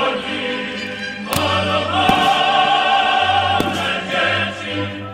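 Choral music: a choir singing long sustained chords. Two sharp cracks cut through it, about a second and a half in and again past three and a half seconds.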